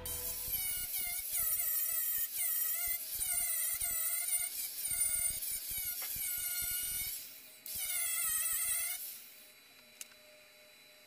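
Bauer 20-volt cordless angle grinder grinding the steel body panel of a VW Beetle fender in short repeated passes. Its whine dips in pitch each time the disc is pressed onto the metal and rises again as it lifts off. It pauses briefly about seven seconds in and stops about nine seconds in.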